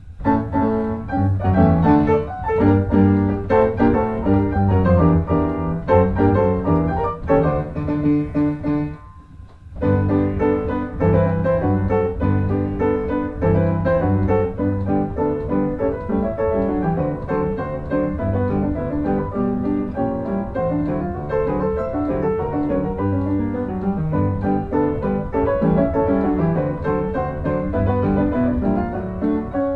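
Background piano music, with a short pause about nine seconds in.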